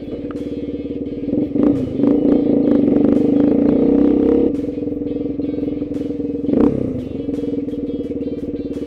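The plow vehicle's engine running steadily with a quick, even pulse. It grows louder for a couple of seconds, as if revved or put under load, then drops back to a steady run.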